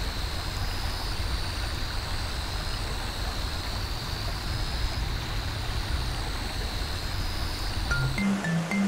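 Steady rushing of running water, with a low rumble under it and a faint, thin high tone above. About eight seconds in, plucked, marimba-like music notes begin.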